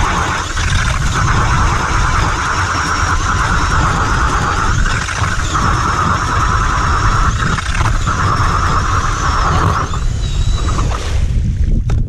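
Cordless drill spinning a K-Drill ice auger through lake ice: a steady motor whine that stops about ten seconds in as the auger is lifted out. A steady low rumble runs underneath.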